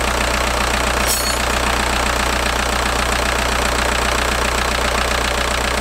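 VW ALH 1.9-litre turbodiesel idling steadily with its diesel clatter, freshly fitted with rebuilt injectors with larger nozzles and running smoothly, not loping. A brief high chirp sounds about a second in.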